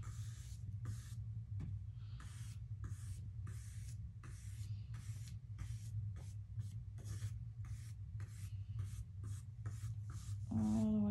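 Flat paintbrush stroking acrylic paint onto canvas, a soft scratchy swish about twice a second, over a steady low hum. A voice sounds briefly near the end.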